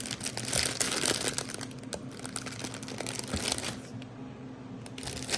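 Plastic candy wrappers and packages crinkling as they are handled, with small crackles. The crinkling dies down about four seconds in.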